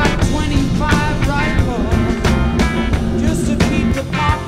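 Background rock music with drums and a sung melody.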